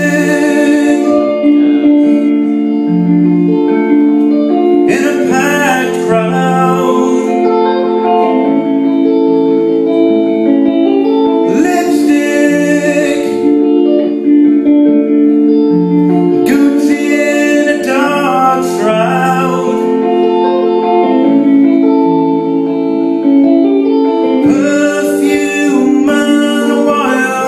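Rock band playing live: a man singing in phrases with pauses between them, over sustained electric guitar and bass chords, with drums.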